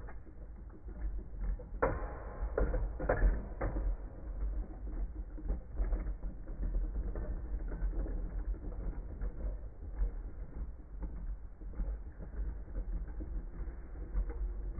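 Two plastic Beyblade spinning tops, Wolborg and Hound Dog, whirring and scraping on the floor of a plastic bowl stadium, with a run of sharp clacks as they collide about two to four seconds in. Near the end one top is tilting over as it runs out of spin.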